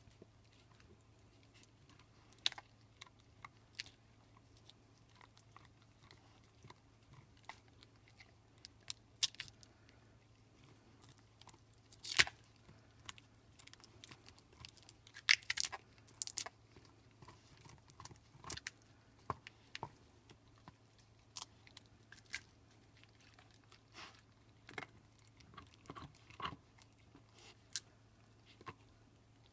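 Pit bull gnawing on a large beef bone: irregular sharp cracks and crunches of teeth on bone, a few louder ones about twelve and fifteen seconds in.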